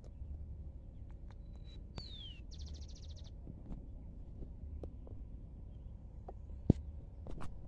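Faint bird chirping: a single falling peep about two seconds in, then a quick high trill, over a low steady rumble. Scattered small clicks, and one sharp knock near the end stands out as the loudest sound.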